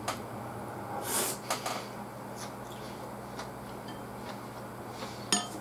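A man eating, breathing hard through his nose: a short hissing nasal breath about a second in, a few small clicks of chewing or chopsticks, and a sharp click near the end, over a steady low hum.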